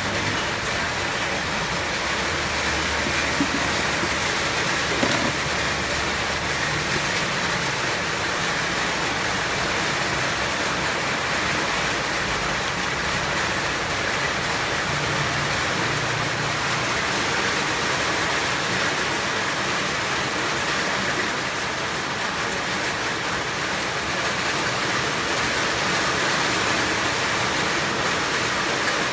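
Heavy rain pouring down steadily, an even rushing hiss.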